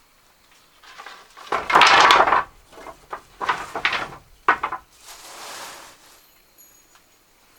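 Scraping and rustling noises with a few knocks, loudest about two seconds in, with one sharp knock about halfway and a softer hiss after it.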